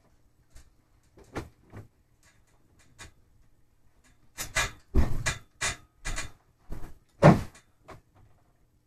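Irregular knocks and clunks from hard objects being handled and set down: a few light ones at first, then a busy cluster over the second half, the loudest a little after seven seconds in.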